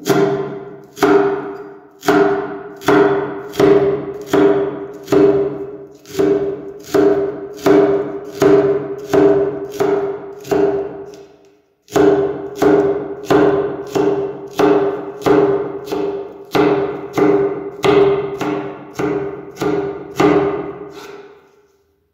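Large kitchen knife chopping chives on a wooden cutting board, about two chops a second, each a hard knock with a brief ringing tone. The chopping breaks off for a moment a little before halfway and stops near the end.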